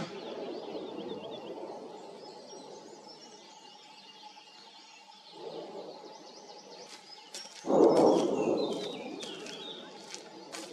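Explosive bursts from Mount Etna's erupting crater: one at the start, another about five seconds in, and the loudest a little under eight seconds in, each fading over a second or two. Birds chirp faintly throughout, and sharp clicks come near the end.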